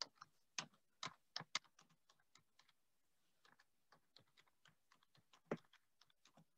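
Faint, irregular clicks of someone working at a computer: a quick cluster in the first second and a half, a scatter of fainter ones, and one sharper click about five and a half seconds in.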